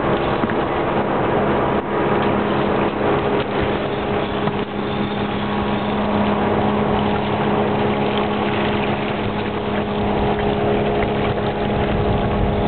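Steady motor hum at a constant pitch under a loud, even rushing noise.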